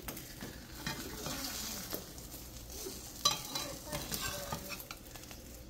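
Beaten eggs with bacon and sausage sizzling in a frying pan while spatulas scrape and stir in the pan, with one sharp tap against the pan about three seconds in.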